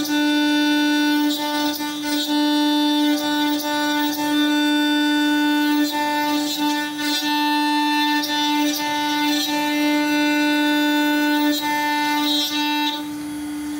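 CNC milling machine cutting metal: a steady, unchanging whine with a pulsing overtone as the cutter engages the workpiece, dropping briefly near the end.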